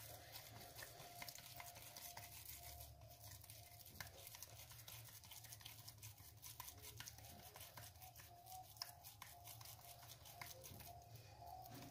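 Near silence: a faint steady hum with soft scattered clicks and rustles.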